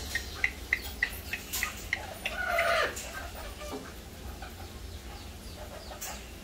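A white, yellow-crested cockatoo imitating a lizard's call: a run of about seven sharp clicks, roughly three a second, followed a couple of seconds in by one louder, drawn-out call that drops in pitch at its end.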